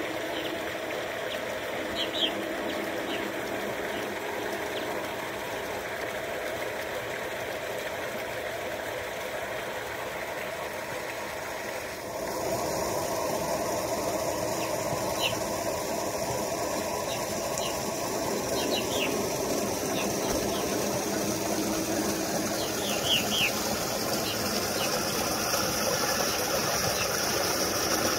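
G-scale model steam locomotive running with its freight train on the track: a steady mechanical running sound that steps up a little about halfway through, with a few short high chirps now and then.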